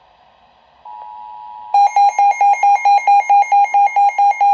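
Emergency Alert System attention signal for a tornado warning: a steady two-tone alert starts about a second in, and a loud, rapid electronic beeping, about six beeps a second, joins it partway through and is the loudest sound.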